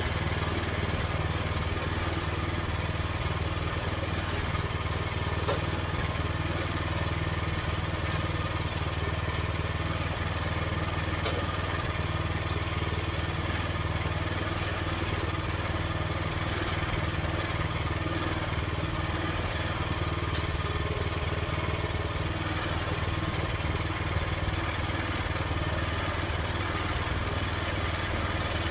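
Small gasoline engine of a Norwood Frontier OS23 portable bandsaw mill running steadily, with an occasional light click.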